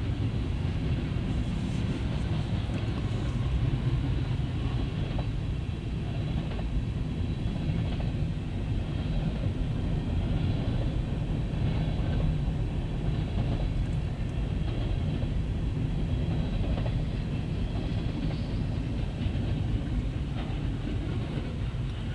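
Manifest freight train rolling past, a steady low rumble of freight car wheels on the rails.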